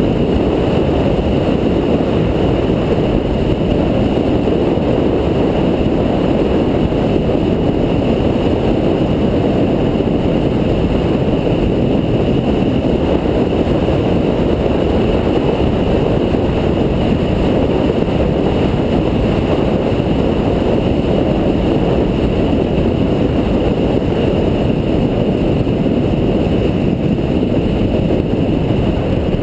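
Steady noise of a car under way, heard from on board: engine and tyre rumble at an even pace, with no clear revving.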